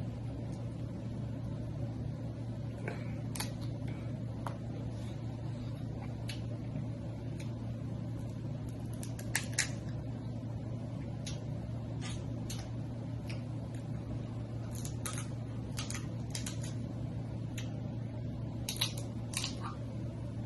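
Snow crab legs being cracked and eaten up close: scattered soft snaps and clicks of shell breaking, with wet squishing of the meat, over a steady low hum. The cracks are faint because the legs were cooked too long and the shells are too soft, as the eater says.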